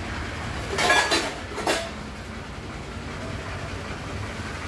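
Mobile crane's engine running with a steady low rumble while it works at the pole, with two or three short, sharp noises about one to two seconds in.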